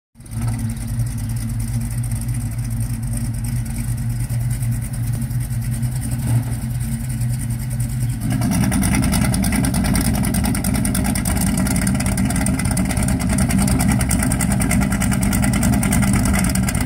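1965 Plymouth Barracuda's engine running through headers and an X-pipe dual exhaust with Dynomax UltraFlow mufflers, idling with a steady, even beat. About eight seconds in, it turns suddenly louder and harsher and stays there.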